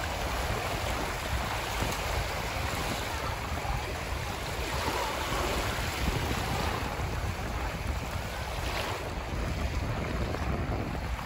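Small lake waves lapping and breaking at the shoreline, a steady wash, with wind buffeting the microphone as a constant low rumble.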